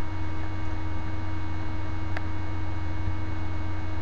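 Steady low electrical hum with faint hiss, the recording's background noise, and one faint click about two seconds in.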